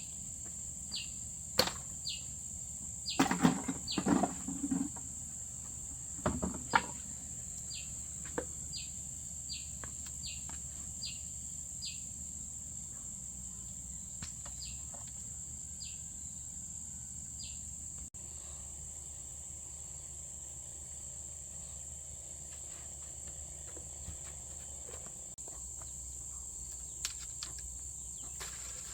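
Steady high-pitched drone of insects, crickets or cicadas, with a run of short, falling chirps repeating every half second to a second during the first half. A few loud knocks and thuds come in the first several seconds.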